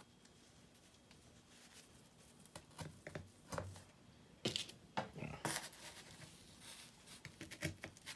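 Faint handling noises: irregular light taps and short rustles as turkey tail feathers are spread out and pinned in place, loudest about halfway through.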